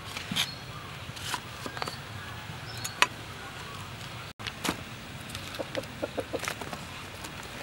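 A hen clucking, with a quick run of short clucks about two-thirds of the way through, over scattered light clicks and knocks from cut jackfruit slices being handled on a board. One sharp click stands out about three seconds in.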